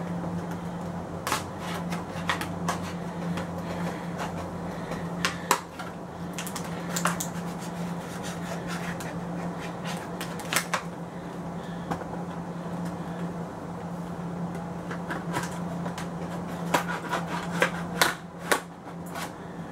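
Knife blade cutting and prying at the tape and seams of a cardboard scope box, with scattered clicks, scrapes and rustles of the cardboard being handled, over a steady low hum.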